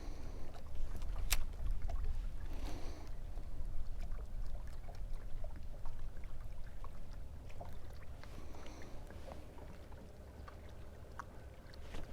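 Water lapping at a fishing boat on a lake, with a steady low rumble and scattered light clicks.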